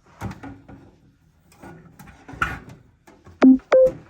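Machine parts being handled during reassembly: scattered light knocks and rattles, then two loud clanks about three and a half seconds in, each with a short ring.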